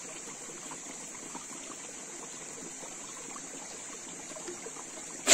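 A shallow stream trickling over rocks, with a steady high-pitched hum above it.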